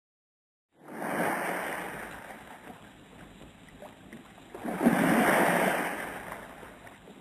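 Two ocean waves breaking and washing out, the first surging in about a second in and the second, louder, about five seconds in, each fading away over a couple of seconds.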